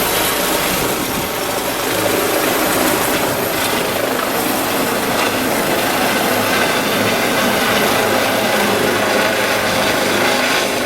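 Medical helicopter just after liftoff, its rotor and turbine noise loud and steady, mixed with the gusting rotor downwash hitting the microphone, which is really intense.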